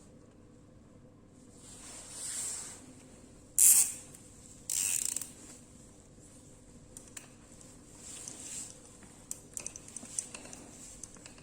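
Clicking and rattling of a small object being handled, with two short, loud hissing bursts a little over a third of the way in.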